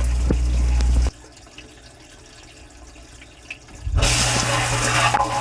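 Dishwasher wash cycle heard from inside the tub: water spraying and splashing over a steady low pump hum. The spray and hum cut out about a second in and start again about four seconds in.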